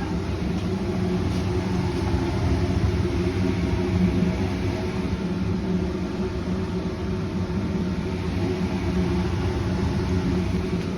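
Steady low machine rumble with a constant hum.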